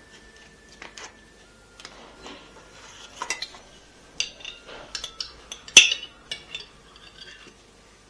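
Kitchen utensils and dishes clinking: a string of irregular taps and clinks, some briefly ringing, with the loudest clink a little before six seconds in.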